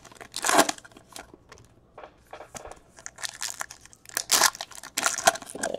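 Silver foil trading-card pack wrappers crinkling and tearing as packs are ripped open by hand, in a run of irregular crackly bursts.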